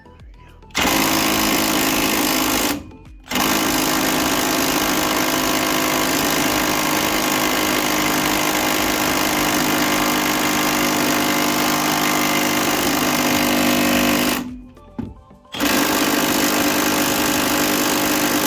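Power wrench with a 17 mm socket running on a seized, rusted body bolt, in three bursts: a short one, a long one of about eleven seconds, then again near the end, as it works the stubborn bolt loose.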